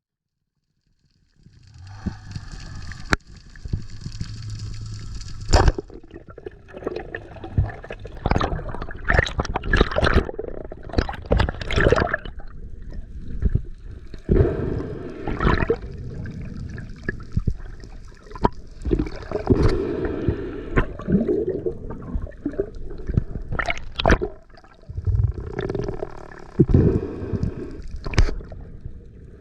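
Water sloshing and gurgling around a camera in the sea, with irregular knocks and splashes from a freediver moving in the water.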